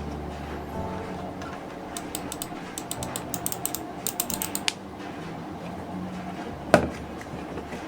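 Mechanical keyboard keys clicking in quick runs as they are pressed, with one louder single click near the end.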